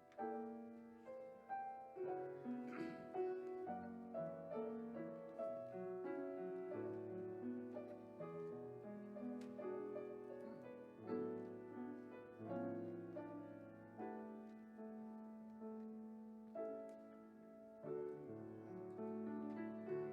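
Solo piano playing a slow, gentle piece of chords and melody, each note struck and fading away.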